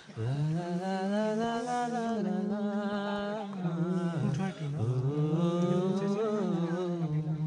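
A voice singing a slow melody in long, drawn-out notes that bend slightly in pitch, with no clear words.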